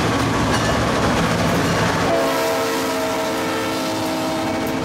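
EMD SD38-2 diesel locomotives pass close by with their non-turbocharged V16 engines running, followed by freight cars rolling past over the rails. A steady multi-note locomotive horn sounds from about two seconds in.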